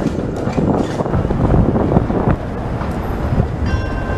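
Older TTC CLRV streetcar rolling past close by on street track: a steady heavy rumble with a few sharp clicks from the wheels. A high steady whine joins near the end.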